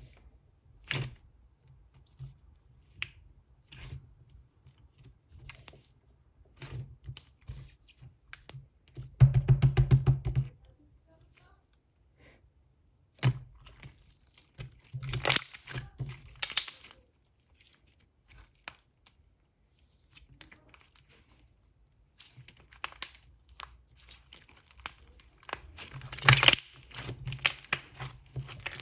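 Intermittent close-up handling noises: scattered clicks and crinkles, with a loud rapid ripping sound lasting about a second and a half, about nine seconds in, and further bursts of crinkling later on.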